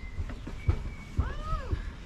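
A single animal call that rises and then falls in pitch a little past halfway, over the thud of walking footsteps about every half second.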